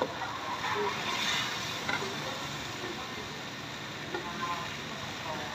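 Pad thai noodles and bean sprouts sizzling in a wok over a charcoal stove as they are stirred and tossed with metal spatulas, with a couple of light knocks of a spatula against the wok.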